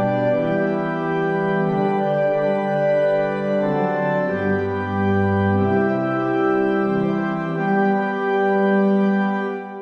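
Organ music: slow, sustained chords with deep bass notes that come and go.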